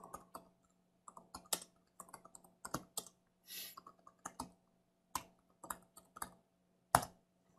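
Typing on a computer keyboard: a quiet run of irregular key clicks, with one sharper keystroke about seven seconds in.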